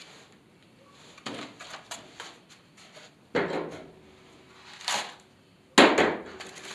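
Cardboard packaging and small boxed parts being handled and set down: a few sharp knocks and rustles, the loudest near the end.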